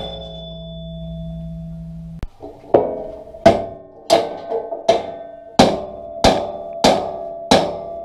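Hammer blows on steel: a square-tube brace being pounded into place inside a tractor bucket. Each strike rings metallically. About two seconds in, the ringing of a strike breaks off and a steady run of blows follows, roughly one every two-thirds of a second.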